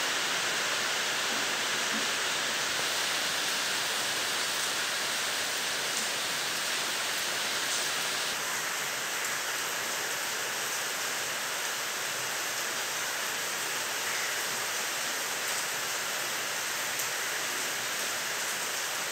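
Steady rain falling: an even hiss with a few faint ticks of single drops.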